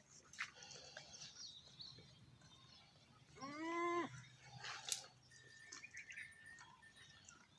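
A goat bleats once, a short call a little under a second long, about three seconds in. Faint bird chirps and a few light clicks sound around it.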